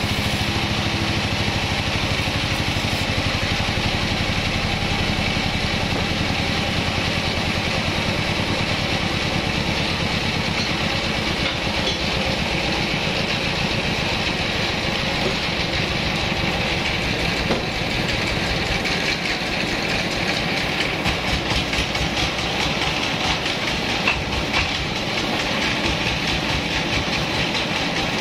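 Large vertical bandsaw mill running steadily, a continuous mechanical drone with a rattle; the deep low drone eases about a third of the way in, leaving a lighter steady machine noise.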